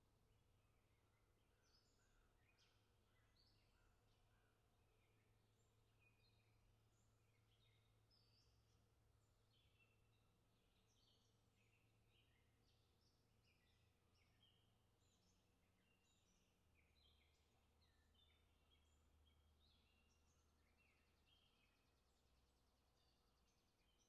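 A very faint chorus of songbirds, with many short chirps and song phrases overlapping one another. A low steady hum runs beneath.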